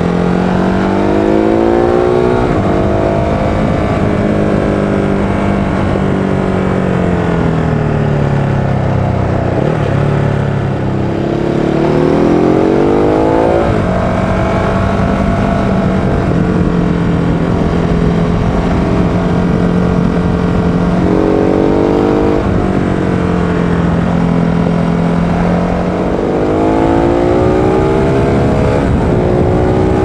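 Ducati Hyper 939's L-twin engine under way, picked up from the rider's trouser pocket over a steady wind rush. The revs climb just after the start, sink slowly until about ten seconds in, and climb again. They hold steady at cruise through the middle, with a short rise and one last climb near the end.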